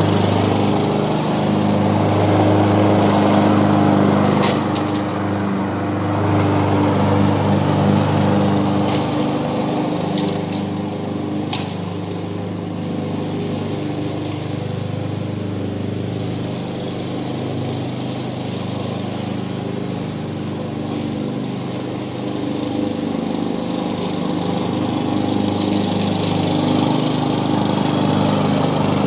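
Walk-behind gas lawn mower running steadily while cutting tall grass. It is loudest at the start and again near the end, and fainter through the middle as it moves away and comes back. A few sharp ticks stand out about 4 and 10 seconds in.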